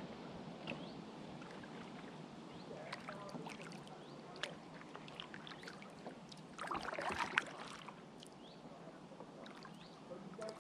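Kayak paddling: the paddle blades dip and splash in the river water with small drips and clicks, and a louder splash comes about two-thirds of the way through.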